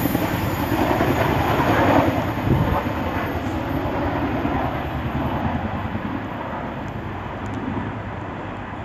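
A train running through the station: a rumbling, rushing noise with a light clatter from the wheels, loud at first and fading steadily as it goes away.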